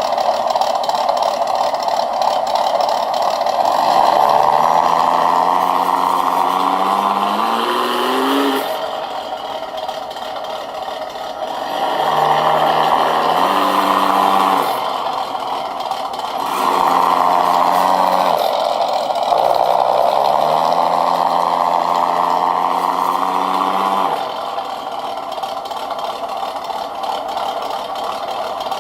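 V8 engine sound module on a 1/6-scale RC crawler, revving four times: each rev climbs in pitch and then drops away, the first about four seconds in and the last ending about five seconds before the end. A steady whirring hiss runs underneath.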